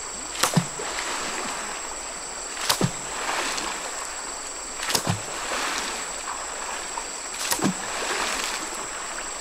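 Water struck hard four times at an even pace, about every two and a half seconds. Each is a sharp slap with a dull thud, followed by a second of splashing.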